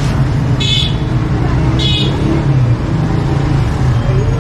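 Street traffic with a steady low rumble of engines and two short, high-pitched horn beeps about a second apart near the start.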